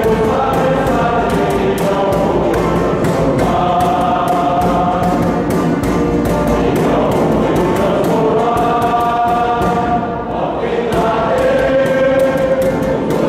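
Men's choir singing a slow hymn in sustained notes, with a short break in the phrase about ten seconds in.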